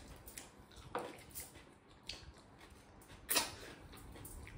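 Close-miked eating sounds: chewing and wet mouth noises as food is eaten by hand, with a few short smacks or clicks, the loudest about three seconds in.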